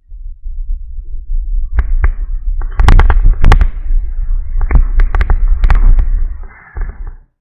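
Sharp plastic clicks and knocks as the inflatable kayak's snap-in skeg is worked by hand in an attempt to release it, over a steady low rumble of handling noise on the microphone. The sound cuts off abruptly near the end.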